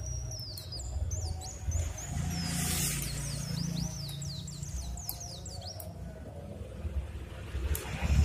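Several birds chirping in quick, sweeping notes over a steady low rumble.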